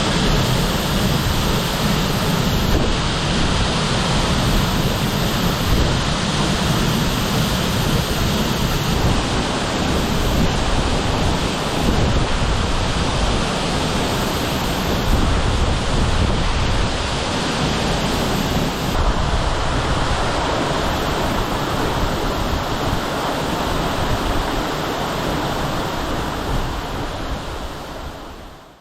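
Waterfall: a steady, full rush of falling water with a deep rumble under it, fading out near the end.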